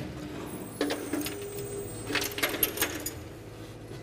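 Light metal clinks and rattles as a checker-plate hatch cover in a truck's deck is fiddled with by gloved hands, with a short steady hum in the background near the middle.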